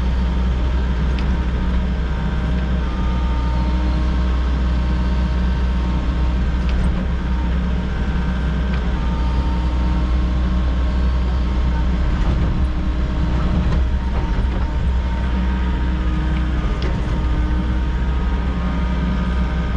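Volvo EC60E mini excavator's diesel engine running steadily under digging work, with a deep even hum and a few faint knocks.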